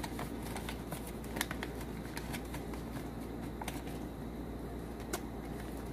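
Plastic cash envelopes in a ring-binder wallet being pried open and flipped by hand: soft rustling with scattered small clicks, the sharpest about a second and a half in.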